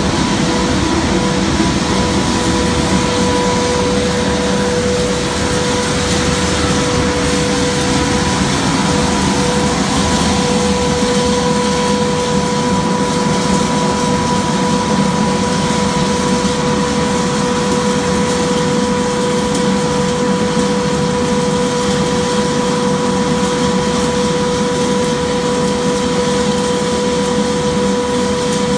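Plastic pelletizing line running: a steady, loud machine noise with a constant whine, from the motors and the cooling fan over the pellet conveyor.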